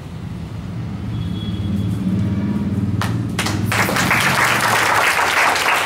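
A small crowd clapping. A few scattered claps come about three seconds in, then swell into steady applause. Before that, a low steady hum runs underneath.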